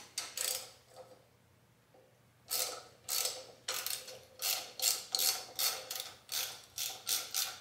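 Hand ratchet wrench worked back and forth on a bolt at the throttle body of a Toyota 4A-GE engine. Two short strokes, a pause, then about a dozen quick even strokes, roughly two and a half a second.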